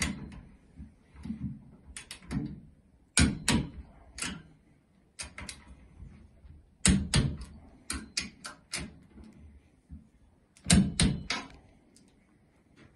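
Click-type torque wrench ratcheting and clicking on the cylinder head bolts of a four-stroke kart engine, in short clusters of sharp clicks every second or two; the wrench's click marks the set torque of 37 N·m being reached.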